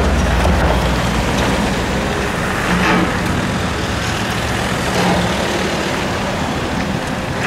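Volvo EC220E excavator's diesel engine running steadily under load, with a low rumble, as the machine lifts a bucket of clay and swings it over to the truck. The noise swells briefly a couple of times.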